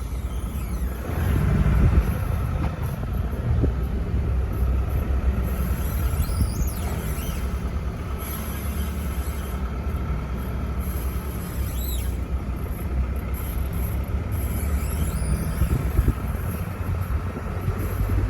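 Mercedes-Benz E220d (W213) diesel car with a low rumble, a steady mid-pitched whine and three brief high-pitched squeaks. The whine is the persistent abnormal noise that never stops.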